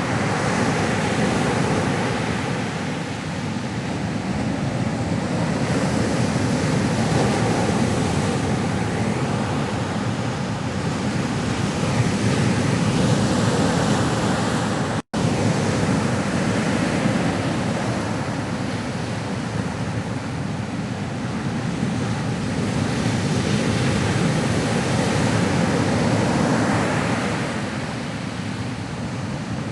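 Ocean surf: a continuous wash of waves that swells and eases slowly, broken by a split-second gap of silence about halfway through.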